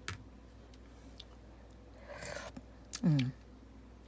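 A metal ladle clicking against a plastic soup container, with a brief slosh of broth being scooped about two seconds in.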